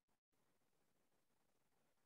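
Near silence: a faint steady hiss, with a brief complete dropout just after the start.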